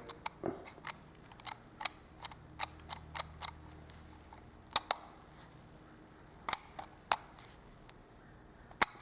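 Light, irregular clicks and taps from handling a Prameta wind-up toy Mercedes-Benz 300, with its wheels being moved; about a dozen separate clicks, some in quick pairs.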